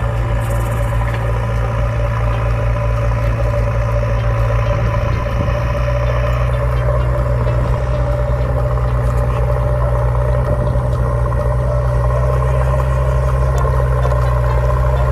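An engine idling, a steady low hum that does not change in pitch.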